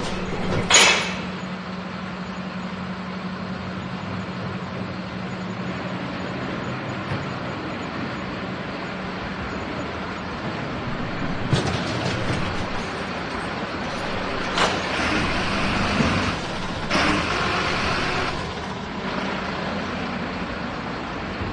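Garbage truck running with a steady engine hum, a short sharp hiss about a second in, then a series of clanks and hisses later on as it works the containers.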